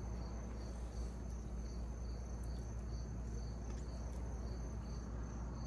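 Insects chirping: a high steady trill with a second high song pulsing a few times a second, over a steady low hum.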